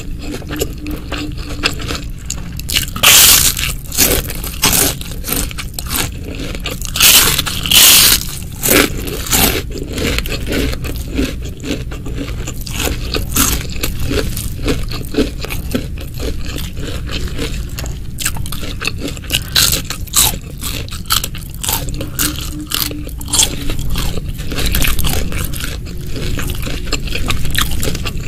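Close-miked eating: crunchy bites and chewing. The loudest crunches come about three seconds in and again around seven to eight seconds in.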